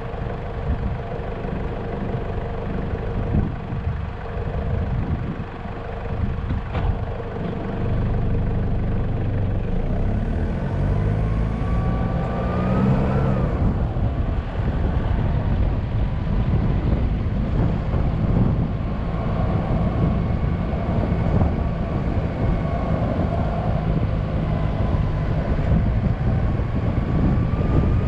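Car driving on a paved road: engine and tyre noise. The engine note rises as the car picks up speed about ten to thirteen seconds in, drops off, then runs steadily and a little louder to the end.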